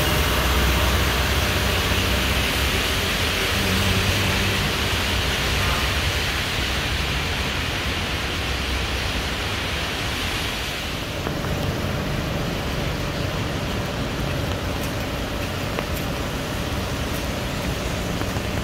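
Steady hiss of rain and tyres on a wet road, with a low rumble of passing traffic; the hiss eases about eleven seconds in.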